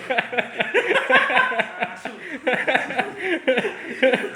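People chuckling and laughing, mixed with indistinct talk.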